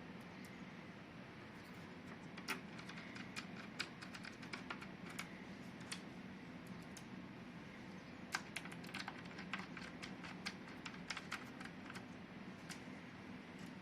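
Light, irregular plastic clicks and taps as the back cover of an HP all-in-one desktop is handled and fitted back on, over a faint steady hum.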